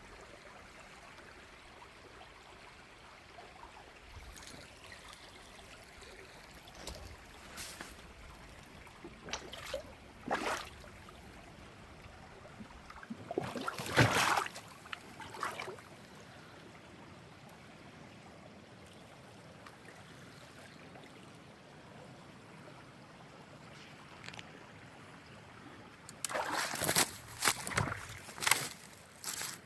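Faint steady trickle of spring water, broken by scattered short crunches and rustles, with a louder cluster in the middle and another near the end.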